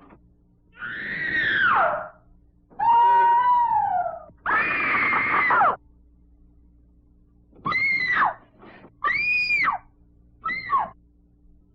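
Haunted-house sound effect of screams and wails: three long, ragged cries in the first half, the second sliding down in pitch, then three short cries near the end that rise and fall, over a faint steady hum.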